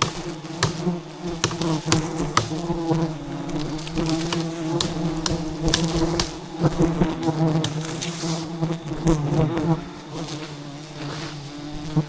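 A swarm of giant honey bees (Apis dorsata) buzzing in a steady, dense hum around a disturbed wild hive, with scattered sharp knocks and clicks.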